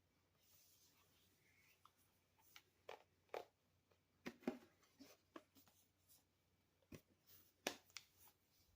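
Hands handling a Microsoft Surface Pro 8 tablet while trying to switch it on: a scattering of faint, short clicks and taps, about a dozen, starting a couple of seconds in, with the sharpest about halfway through and again near the end.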